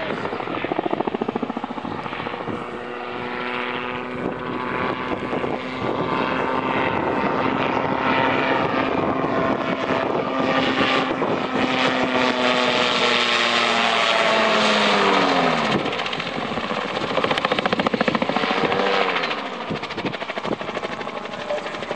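Magni M16 autogyro flying overhead, its engine and pusher propeller running steadily and growing louder. The engine note falls in pitch twice in the second half.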